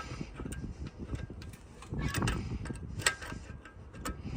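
Light metal clicks and clinks of a crescent wrench being fitted onto a loader hydraulic hose fitting, a scatter of sharp ticks with a slightly louder knock about two seconds in.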